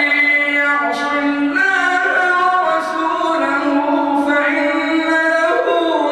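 A man's voice reciting the Quran in slow, melodic chant, amplified through a microphone. He draws out long held notes whose pitch steps up and down, with hardly a break between them.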